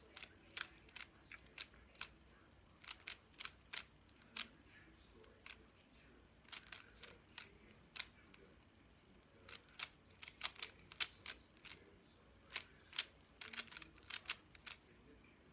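Plastic 3x3 speed cube being turned by hand during a solve: irregular clicks and clacks of the layers turning, coming in quick runs with short pauses between.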